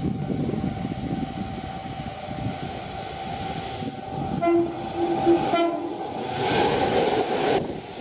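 Nankai electric train running at the station with a steady whine over a low rumble, sounding its horn in a quick run of short toots about halfway through. A rushing hiss swells after the toots and drops away just before the end.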